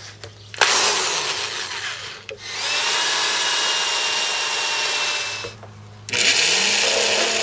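Electric drill driving a hole saw into the plastic wall of a 55-gallon drum in two runs, the motor spinning up at the start of each. About six seconds in, a Craftsman jigsaw starts up with its blade in the started hole.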